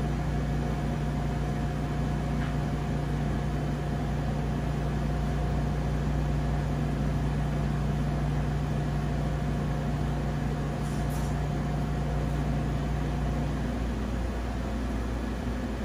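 Steady mechanical hum of kitchen equipment, with a low droning tone that cuts off about two seconds before the end.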